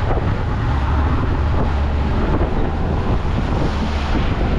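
Fishing boat under way at sea: its engine running as a steady low hum, with wind on the microphone and the rush of water and waves.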